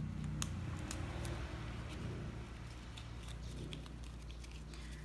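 Faint rustling and scratching of grosgrain ribbon as fingers wrap a narrow ribbon around the centre of a hair bow, with scattered small clicks.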